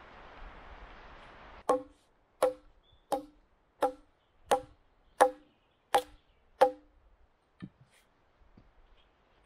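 Hatchet striking a wooden log: eight sharp, evenly spaced blows about 0.7 s apart, each a knock with a short ring. A steady hiss cuts off just before the first blow, and a lighter knock and faint clatter follow.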